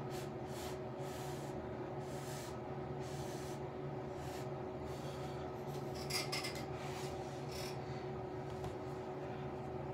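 Makeup brush rubbing in short, irregular strokes over a steady low hum, with a brief cluster of strokes about six seconds in.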